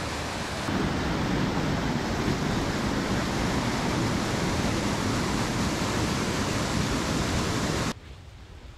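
White-water torrent rushing through a rocky gorge below a wooden footbridge: a steady roar. It cuts off abruptly near the end, leaving a much quieter outdoor hiss.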